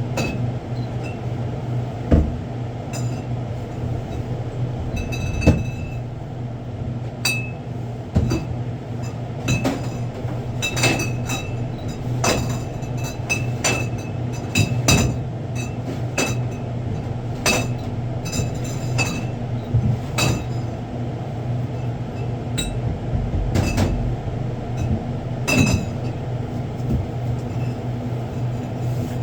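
Convenience-store stock being unpacked and shelved: frequent clinks and knocks of bottles and packaged goods being set down, some with a short glassy ring, over a steady low hum.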